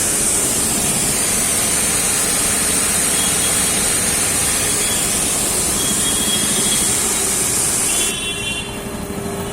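Blackstone 1500 PSI single-phase 220 V, 3 kW electric pressure washer spraying with a steady, loud hiss; about eight seconds in the spray stops and the pump and motor keep humming.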